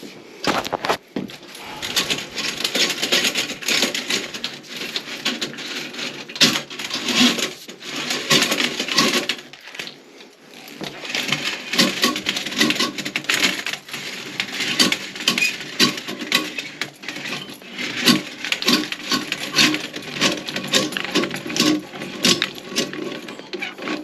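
Vigorous, continuous scraping and clinking of a tool being worked hard in a toilet to clear a blockage, with a short pause about ten seconds in.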